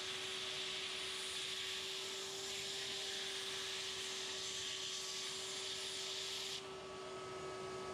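Shop vac motor running with a steady whine and a hiss of rushing air, sucking moisture out of a wet phone. About six and a half seconds in, the airflow hiss drops away abruptly while the motor whine carries on.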